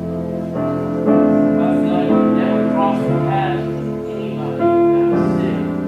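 Keyboard or piano playing slow, sustained chords of worship music.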